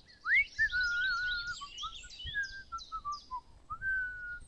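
Songbirds chirping and whistling: a run of rising, falling and wavering whistled notes over quick high chirps.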